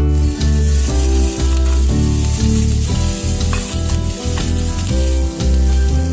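Food frying in hot oil in a pan, a steady sizzling hiss, over background music.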